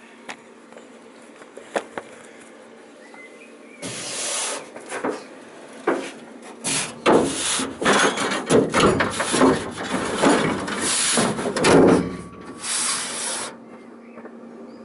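Handling noise in a car's engine bay: after a few quiet seconds with a couple of small clicks, a long run of rubbing, scraping and knocking as the bonnet is brought down over a homemade steel strut brace to check its clearance. A faint steady hum sits underneath throughout.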